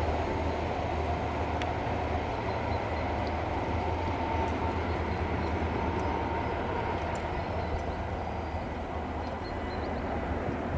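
Pair of class 6400/6500 diesel-electric shunting locomotives running light engine as they move away: a steady low engine drone with a thin, steady higher whine that fades out partway through. The sound eases slightly toward the end as the locomotives draw off.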